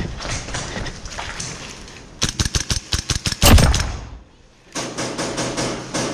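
Airsoft rifle fire: a rapid string of shots about two seconds in, a loud thump, a short lull, then another fast string of shots near the end.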